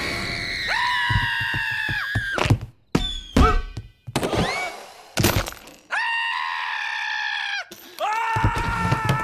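A cartoon boy's long, high scream of fright, then a burst of crashes and thuds with short cries, then more long screams, the monster screaming near the end.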